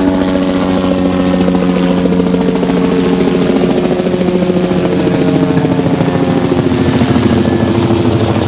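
Helicopter flying in close by, its rotor beating rapidly over a steady engine drone. The sound is loud and holds even throughout.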